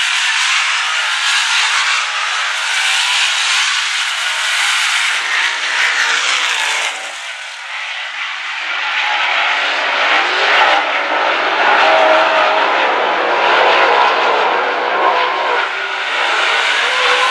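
Dirt Late Model race cars' V8 engines at full throttle, a pack racing around a dirt oval. It is a continuous loud blare that dips briefly about seven seconds in and swells again.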